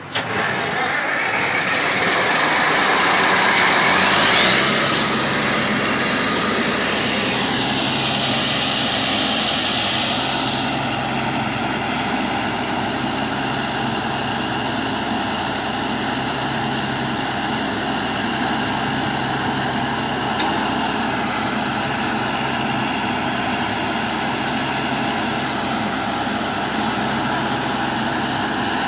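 Truck-mounted borewell drilling rig's air compressor and its diesel engine coming on suddenly, with a whine rising over about four seconds and then holding as a steady high whine over the engine's drone.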